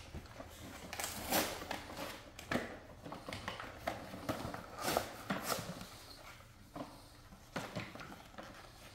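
Irregular light knocks and clatter of a plastic ride-on toy being handled and pushed about on a tile floor.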